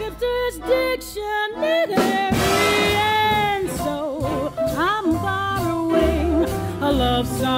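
Swing-style jazz music: a passage of melody lines with vibrato over a continuous band accompaniment.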